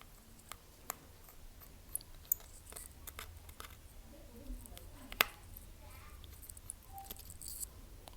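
Scattered small clicks and taps of repair tools and phone parts being handled while an iPhone 7 Plus is worked on, a few sharp ones standing out about two and five seconds in.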